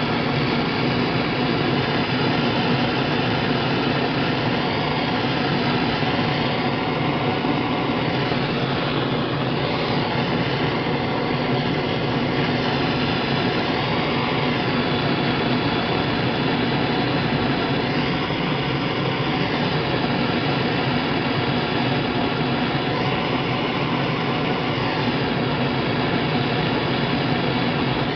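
Propane torch burning with a steady roar, its flame playing on an aluminium motorbike brake lever to soften it for straightening.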